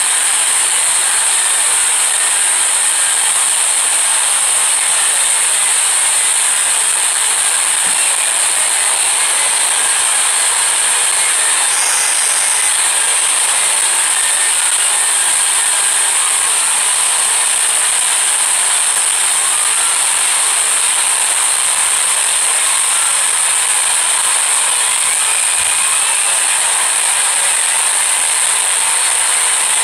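Loud, steady high-pitched hiss like static noise, unchanging throughout.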